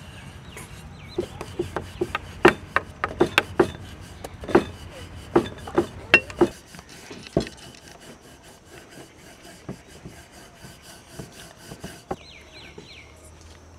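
Wooden rolling pin rolling out dough on a round board, with a run of sharp knocks and clacks of pin and board for the first half, then softer rubbing and occasional light taps.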